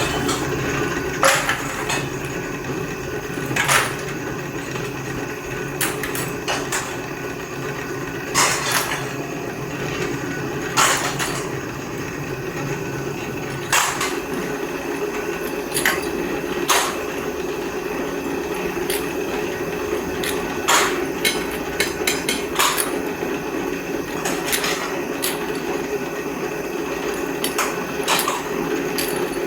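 Irregular sharp metal knocks and clanks, one every one to three seconds, over a steady machine hum, typical of metalworking on scrap compressor parts.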